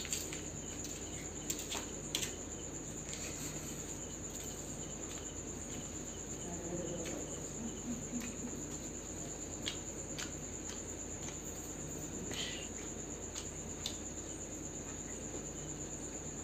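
Crickets chirping in a steady high-pitched trill, with a few scattered light clicks.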